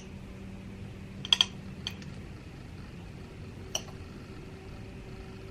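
Quiet eating sounds at a meal: a few light clicks and taps, a close pair just over a second in, another near two seconds and one near four seconds, over a steady low room hum.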